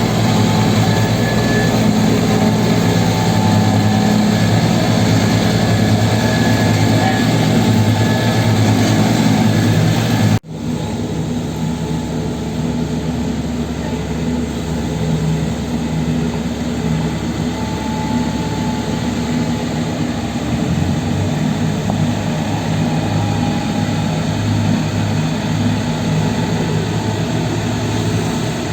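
Heavy diesel road-works machinery running steadily with a low hum. A sudden break about ten seconds in, after which the engine sound carries on a little quieter.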